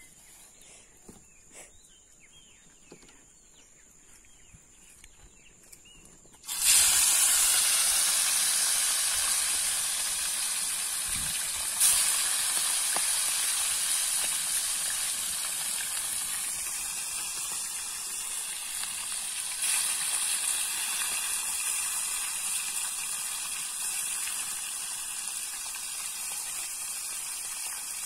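Fish pieces going into hot oil in a frying pan: a loud sizzle starts all at once about six seconds in, with a sharp pop soon after, then settles into a steady sizzle that slowly eases.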